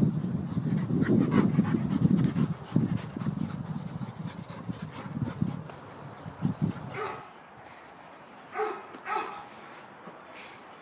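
A group of setters play-fighting, with low rough growling for the first several seconds, then two or three short barks.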